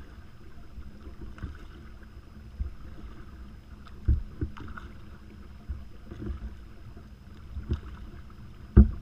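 Kayak paddling: the double-bladed paddle dipping and stirring the water stroke after stroke, with a few dull knocks, the loudest about four seconds in and near the end. The sound is muffled, with little treble.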